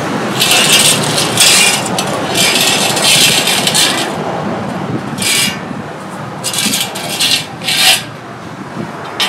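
Rasping, scraping strokes of metal on square steel tubing, about eight of them at an uneven pace, each up to about a second long, with a pause about halfway through.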